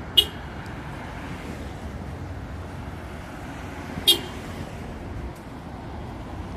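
Street traffic noise with a car driving past, broken by two short sharp sounds: one right at the start and one about four seconds in.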